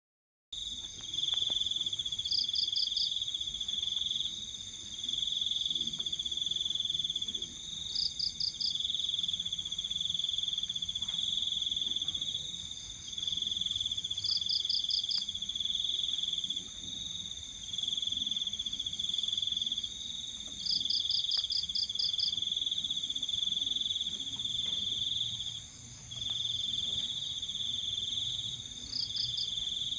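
Chorus of crickets and other night insects. A loud, steady high trill runs in long stretches a second or two long with brief breaks. A higher, fainter buzz carries on underneath, with a regular ticking chirp above it. A short, rapid pulsed chirp comes roughly every six seconds.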